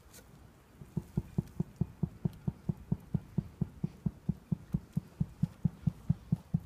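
Leopard seal giving a rapid, even series of low pulsed grunts, about four or five a second, starting about a second in.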